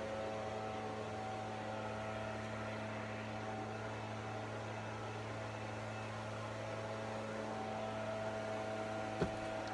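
A steady low machine hum holding a constant pitch, with a single light knock near the end.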